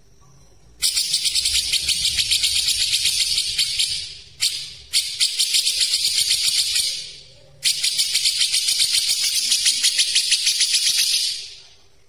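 Grey-cheeked bulbul (cucak jenggot) giving its fast, tight rattling chatter, a rapid run of high ticks in four bursts: three of a few seconds each and one short one about four and a half seconds in.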